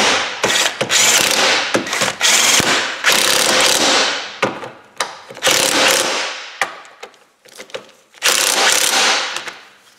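Pneumatic air ratchet running in about five bursts of a second or two with short pauses, spinning the ball joint nuts down on the control arm.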